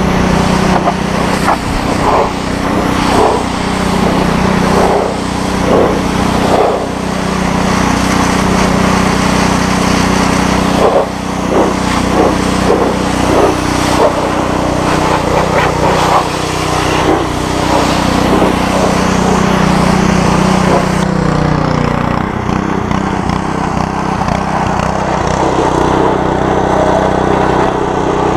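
Gas-engine pressure washer running steadily, with its high-pressure water jet from a 25-degree tip hissing and spattering against a truck's body panels. About three-quarters of the way through the spray hiss drops away and the engine keeps running.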